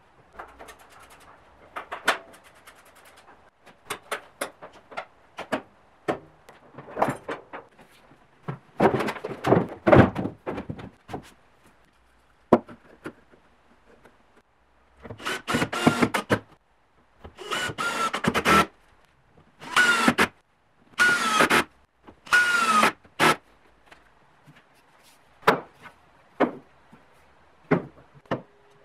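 Workshop handling noises: scattered knocks and clunks of the dust extractor's parts and wooden pieces being moved, then five scraping strokes, each with a squeak that drops slightly in pitch, as parts are slid into place, and a few more knocks near the end.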